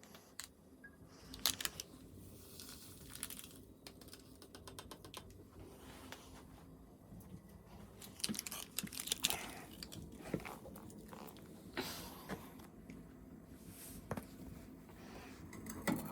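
Irregular rustling and crinkling handling noises mixed with scattered light clicks and knocks, with a quick run of small clicks a few seconds in and louder bursts of rustling about halfway through and near the end.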